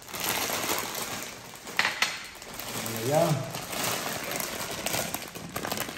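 Plastic bread bag crinkling as it is handled. A small bowl is set down on a glass tabletop with a sharp clink about two seconds in.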